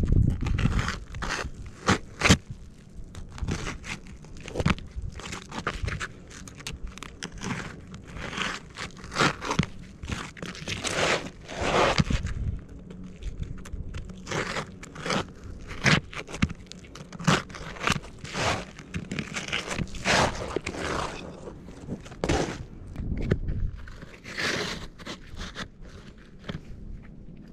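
Irregular gritty crunches and scrapes of boots and gloved hands on asphalt roof shingles, with sharp clicks among them and a few longer scrapes.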